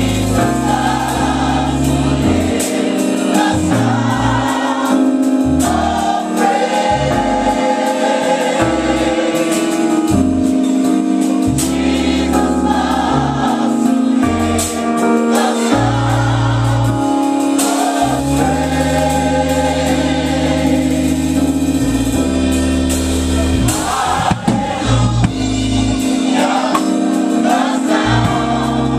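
Gospel choir singing over a band with bass and drums.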